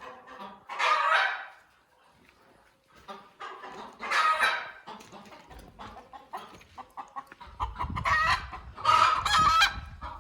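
Domestic chickens clucking and squawking in several loud outbursts, about four of them. A low rumble joins in near the end.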